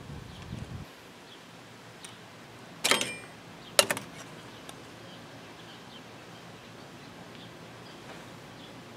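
Two sharp metal clicks, nearly a second apart, each with a brief ring, from pliers and parts worked at the centre of a new front wheel hub bearing on the axle shaft.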